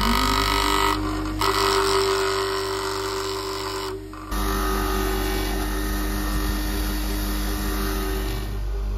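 Einhell bench grinder running with a steady hum while a flat file is pressed against its spinning wheel, giving a bright scraping noise in two stretches, broken briefly about a second in and stopping about four seconds in. After that only the grinder's steady hum goes on.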